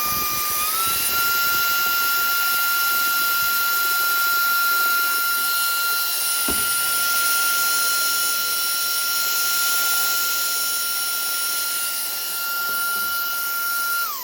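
Brushless motor of a Zarimi cordless handheld vacuum running with the long blower nozzle fitted: a steady, high-pitched whine that steps up in pitch about a second in. Near the end it is switched off and the whine falls away as the motor spins down.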